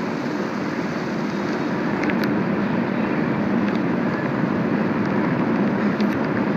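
Steady low background noise, even throughout, with a few faint clicks.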